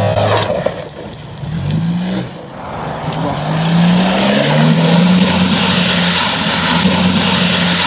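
Mitsubishi Pajero's engine revving in repeated rising surges as the 4x4 ploughs through a deep muddy puddle, with water splashing and churning around it. It grows loudest from about four seconds in.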